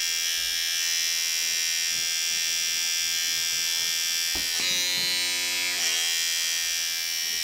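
Handheld pore vacuum's small electric suction motor running with a steady high-pitched whine. About four seconds in there is a click, after which the whine changes tone for a couple of seconds.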